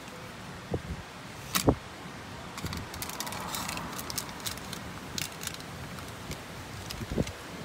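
Gusty wind with rustling leaves and palm fronds, broken by scattered sharp clicks and a few short low thumps, the loudest about two seconds in.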